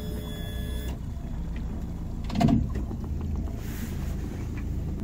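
60 hp fuel-injected outboard motor idling quietly with a steady low hum. There is one louder thump about two and a half seconds in.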